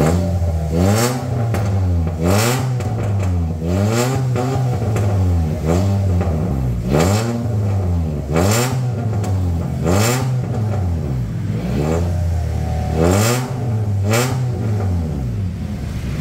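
Honda Brio RS's 1.2-litre four-cylinder engine revved repeatedly from idle, about a dozen short blips a second or so apart, each rising and falling back, through a freshly fitted aftermarket exhaust: racing downpipe and front pipe with an HKS bolt-on muffler.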